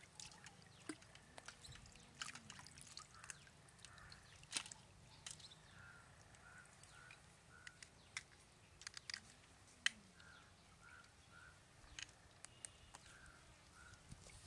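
Faint clicks and snaps of raw crabs being cracked and pulled apart by hand over a pan of water, with a little dripping. A bird calls in short runs of quick notes a few times.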